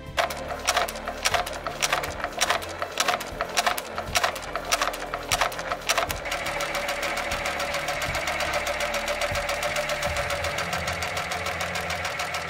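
Global PA304 P four-needle lockstitch industrial sewing machine with roller puller stitching parachute fabric. For the first half it gives loud, unevenly spaced clacks; from about halfway it settles into a steady, fast running rattle.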